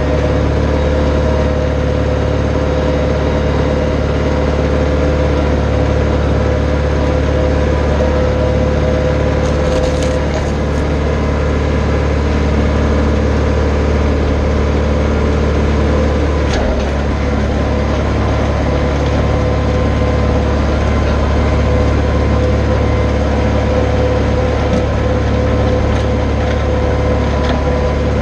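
Branson 4520 compact tractor's diesel engine running steadily as the tractor drags a box blade across loose dirt, heard close up from the machine.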